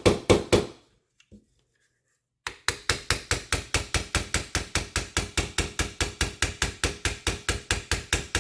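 Small hammer tapping a front roll pin into a CZ P10F pistol frame: rapid, even metallic taps at about six or seven a second, with a pause of about two seconds near the start.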